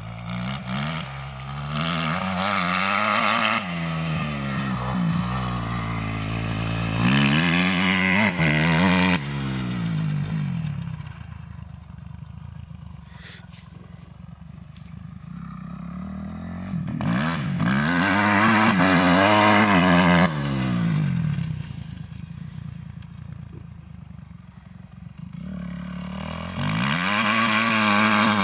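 Kawasaki 250 cc motocross bike's engine revving up and down as it is ridden around, the pitch rising and falling with each burst of throttle. It grows loud three times as the bike comes near, and drops to a faint drone in between.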